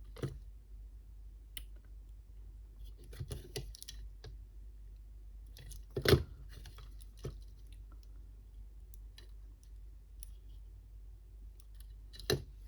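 Scattered clicks and taps of small parts being handled: battery cells and their thin metal connecting tags being bent and fitted into a cordless screwdriver's battery housing. The sharpest click comes about six seconds in, with another near the end.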